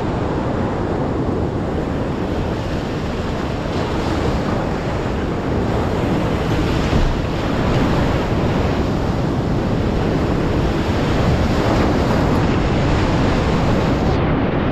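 Big whitewater rapid rushing around a cataraft, a steady roar of churning river water that grows a little louder as the boat runs into the waves.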